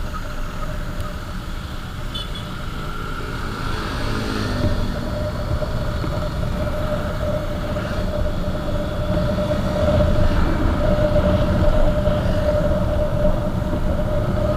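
Motorcycle engine running steadily on the move, with low wind rumble on the microphone; the engine note grows louder about two-thirds of the way through.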